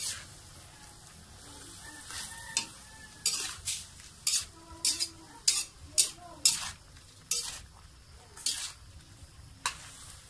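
Spatula stirring and scraping bitter melon, kikiam and egg around a metal wok while the food sizzles. The first two seconds hold only the quieter sizzle; then the scrapes come in irregular strokes, about one or two a second.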